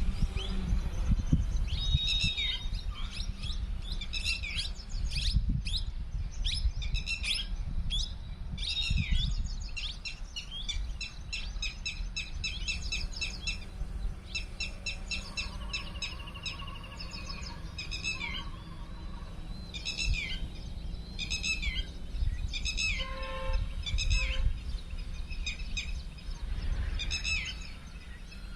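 Birds calling over and over, many short, downward-sweeping chirps in quick series, over a steady low rumble.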